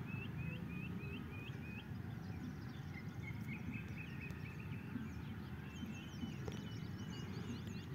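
Faint background birdsong. One bird repeats a short hooked chirp about four times a second in the first two seconds, then a thin steady whistle sounds, and a flurry of quick high chirps comes near the end.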